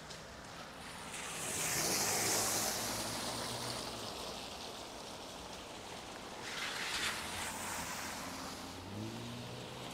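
Cars passing on a wet road, their tyres hissing as they swell up and fade: a long pass peaking about two seconds in and a shorter one about seven seconds in. Near the end an engine's hum rises in pitch.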